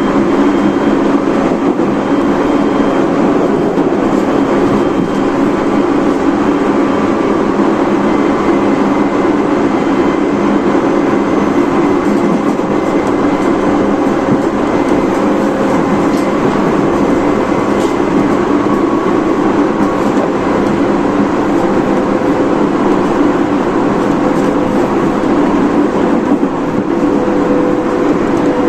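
Tobu 30000 series electric train with Hitachi IGBT inverter drive, running at speed: a steady rumble of wheels on rail, with faint steady motor tones over it.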